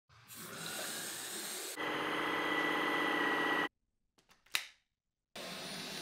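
Dyson V12s Detect Slim cordless vacuum sounds in short edited cuts: a rising hiss, then a steady high-pitched motor whine for about two seconds that cuts off suddenly. After a short silence come a few sharp clicks, and about five seconds in an even suction rush starts.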